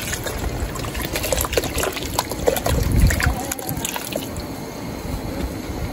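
Water pouring from a plastic bottle into an enamelled Dutch oven of dry rice mix, a steady stream splashing into the pot.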